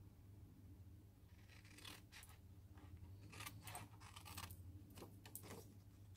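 Small paper snips cutting through patterned designer paper: faint, quick snips and paper rustle starting about a second and a half in, busiest in the middle.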